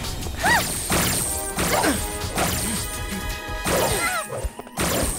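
Cartoon action soundtrack: dramatic music under repeated crashing and hitting sound effects.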